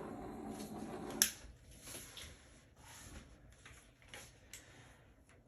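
A steady mechanical hum cuts off with a sharp click about a second in. Faint, scattered clicks and taps of handling follow.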